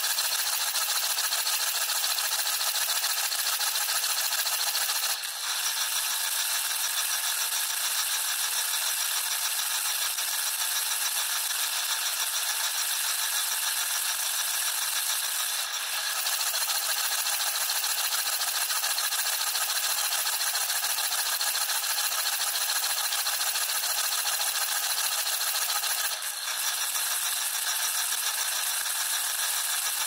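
Water spray and splashing inside a running Bosch dishwasher during its heated wash phase, heard from within the tub: a steady hiss, dipping briefly three times.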